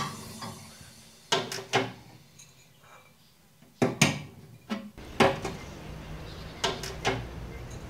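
A series of separate sharp knocks and clatters, as of hard objects being handled and set down: two about a second and a half in, a cluster around four to five and a half seconds, and two more near the end.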